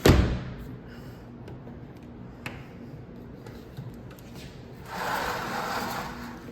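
A sharp knock, then a faint click about two and a half seconds in, then a second or so of sliding, rustling noise about five seconds in.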